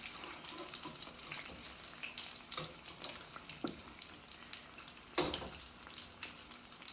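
Egg-battered chile rellenos frying in hot oil: a steady crackling sizzle, with a few sharp knocks, the loudest a little past five seconds in.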